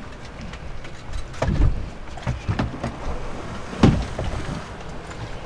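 Boat drifting at sea: steady wind and water noise around the hull, with a few sharp knocks, the loudest about four seconds in.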